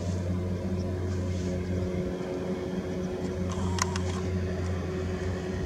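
An engine running steadily with a low, even hum, with one short click about four seconds in.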